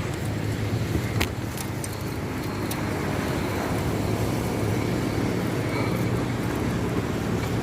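Steady low rumble of road traffic, with a few sharp clicks in the first three seconds.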